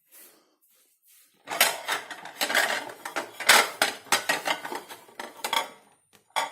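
Dishes and cutlery clinking and clattering in a dishwasher rack as it is handled and unloaded: a quick run of knocks from about a second and a half in to nearly six seconds, then one sharp knock near the end.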